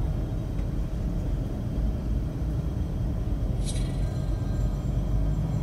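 Tour coach driving, heard from inside the cabin as a steady low rumble of engine and road noise, with a short hiss about three and a half seconds in.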